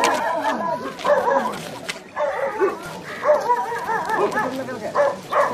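Dogs barking and yelping in quick, overlapping yaps, with a brief lull about two seconds in; voices are mixed in.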